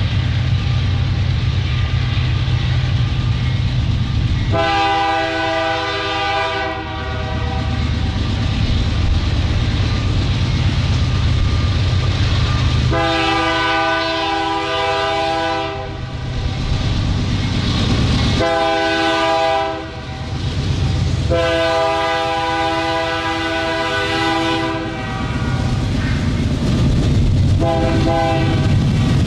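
Two Canadian Pacific GE diesel locomotives throttling up with a steady low engine rumble, while the lead unit's multi-chime air horn blows long, long, short, long: the grade-crossing signal, followed by a brief final tap.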